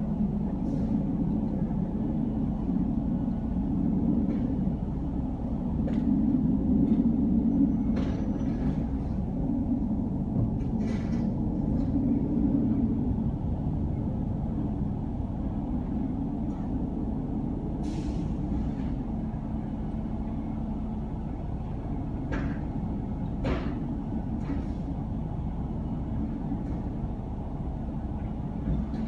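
Refuse truck's diesel engine running steadily, rising and easing a little at times, with a few short hisses and clicks such as air-brake and mechanism noises.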